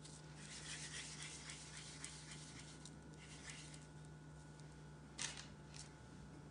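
Faint soft rustling of hands pinching and rolling shortbread-style cookie dough between the palms, then a short sharp tap about five seconds in and a lighter one just after as the dough ball is set down on the parchment-lined baking tray.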